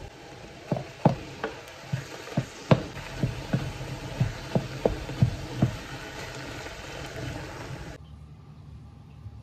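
Ground beef mince sizzling in a non-stick saucepan while a wooden spoon stirs it, knocking against the pan about a dozen times over the first six seconds. The sizzling drops away suddenly about eight seconds in.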